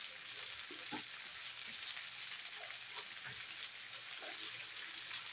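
Strips of marinated beef frying in a skillet on a gas burner: a steady sizzle with light crackling.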